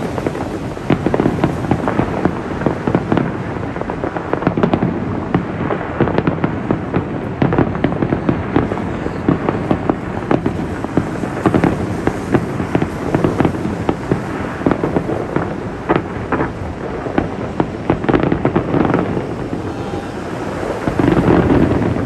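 Aerial fireworks display going off: a continuous stream of rapid bangs and crackles, with a louder swell near the end.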